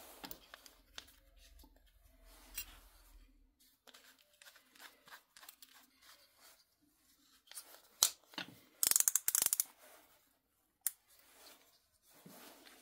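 Small metal clicks and scrapes from a metal drill chuck as a thin saw blade is fitted into its jaws and the knurled sleeve is turned by hand. A sharp click about eight seconds in and a fast run of clicks just after it are the loudest part.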